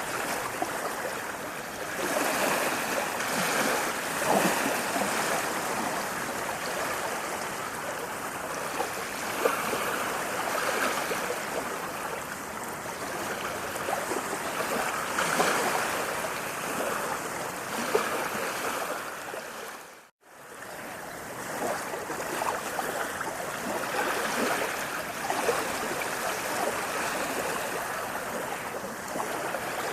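Running water flowing and splashing steadily, with small splashes scattered through it. A split-second gap of silence breaks it about two-thirds of the way through.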